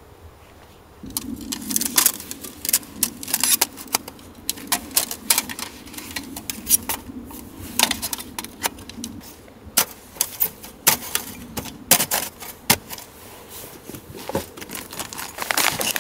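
Camping gear being handled and unpacked by hand: a run of irregular light clicks and clatters of small hard items knocking together, with bag rustling. A low steady hum sits under it from about a second in until about nine seconds.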